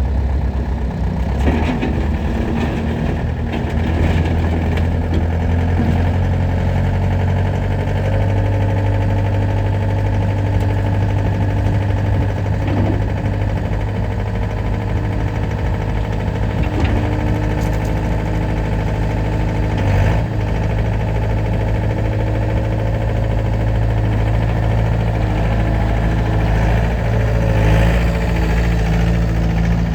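Bobcat A300 skid steer loader's diesel engine running steadily, its pitch stepping up or down a few times, with occasional short clunks.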